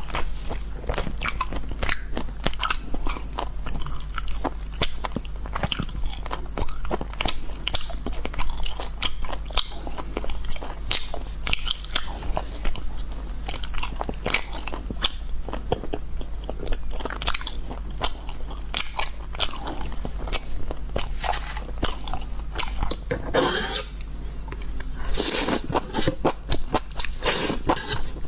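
Close-miked chewing of crisp, crunchy food: a dense, irregular run of crunches and bites, with louder clusters near the end.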